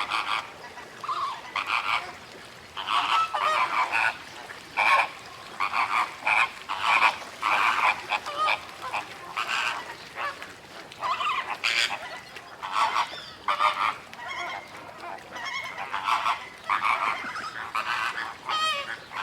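A flock of flamingos honking, many short calls overlapping in a continuous chatter.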